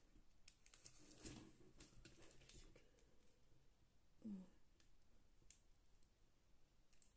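Faint scattered clicks and rustles of small resin diamond-painting drills shifting inside a plastic zip bag as it is fingered, with one short low vocal sound about four seconds in.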